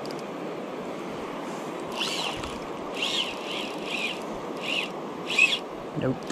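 A fly reel's drag paying out line in several short buzzes, each rising then falling in pitch, as a hooked brown trout takes line in surges. Under it runs a steady rush of river water.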